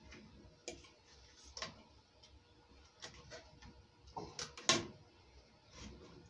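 Utility knife blade cutting paperboard against a glass sheet: irregular sharp clicks and scrapes, the loudest about three-quarters of the way through.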